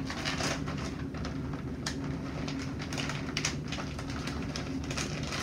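Plastic bag of shredded cheese crinkling and rustling as it is handled and poured, an irregular string of crackles, over a steady low hum.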